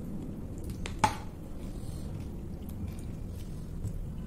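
Close-up eating sounds: soft squishing and chewing of pork curry and rice eaten by hand, with small clicks and one sharp click about a second in.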